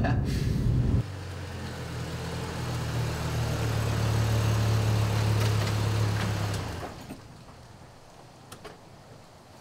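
Pickup truck engine idling with a steady low hum. It cuts off about seven seconds in as the engine is switched off.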